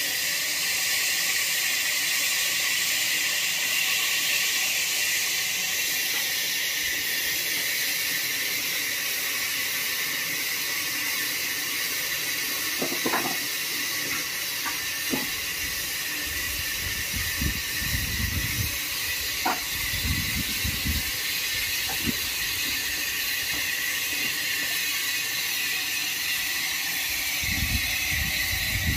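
Steady high hiss throughout, with a few sharp wooden clacks from about halfway and dull thumps later on: short cut wooden packing pieces being handled and stacked by hand onto a load.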